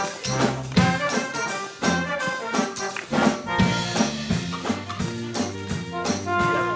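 Instrumental music with a steady percussive beat and a bass line stepping between held notes.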